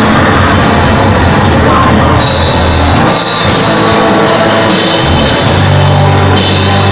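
Loud 'sound rusak' music, deliberately overdriven and clipped, with a rock-style drum beat and heavy bass; the bass drops out for about two seconds partway through.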